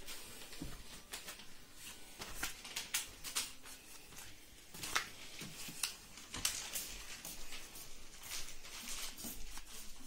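Hands wiping a small plastic washing-machine part with a wet wipe: soft irregular rustling of the wipe with light clicks and taps of plastic being handled.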